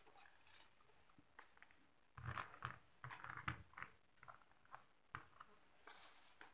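Faint clicks and rustles of hands handling wires and circuit boards, bunched together a couple of seconds in.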